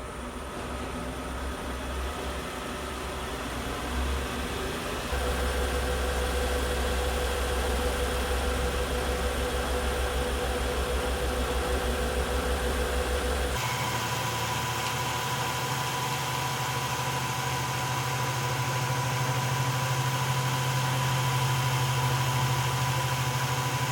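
Electric wood lathe running steadily with a low hum and steady whine. It builds up over the first few seconds, and about fourteen seconds in its tone changes abruptly to a higher hum.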